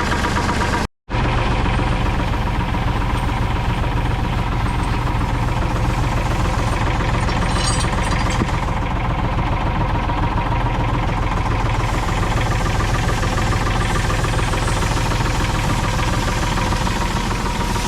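Mini excavator's diesel engine running steadily, with a brief cut to silence about a second in.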